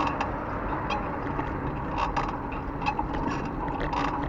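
Bicycle ride noise: a steady rush of wind and road noise, broken by short creaks and clicks from the bike's creaking saddle, with two clusters about two and four seconds in.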